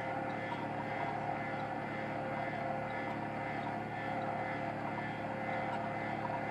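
Boat engine running steadily, a constant drone with a few held tones.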